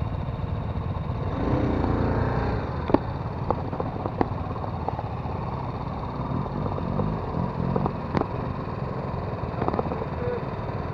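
Off-road motorcycle engines running, revving up briefly about two seconds in and again about seven seconds in, over a steady low rumble, with a few sharp clicks.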